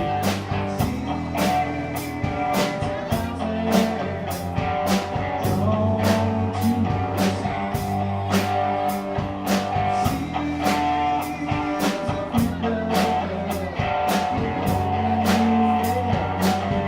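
Rock band playing live with electric guitar, bass and drum kit keeping a steady beat.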